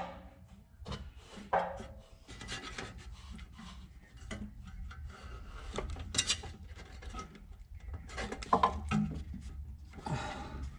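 Hands and small tools working bolts and a bracket in a car's engine bay: irregular rubbing and scraping, with scattered small clicks and knocks, a few sharper ones in the middle and later on.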